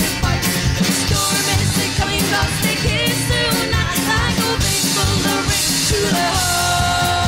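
Live band music: women singing over drums, bass guitar and guitar, with a long held note coming in about a second before the end.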